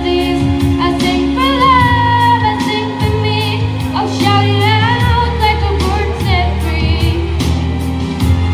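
A girl singing a melody into a microphone, her voice amplified through the PA, over instrumental accompaniment with sustained chords and a steady beat.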